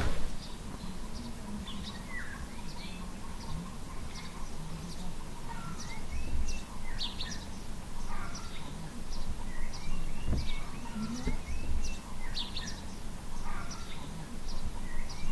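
Small birds chirping and calling, many short high chirps and little rising and falling notes scattered throughout, over a steady low background rumble.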